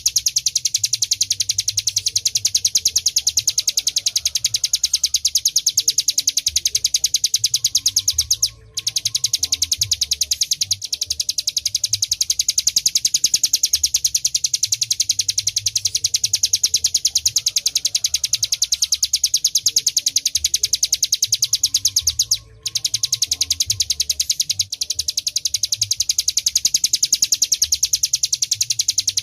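Ciblek gunung, a mountain prinia, singing a long, very fast, high-pitched trill of rapidly repeated notes. The trill breaks off in two short pauses, a little over a third of the way in and again about three quarters in. A faint low hum runs underneath.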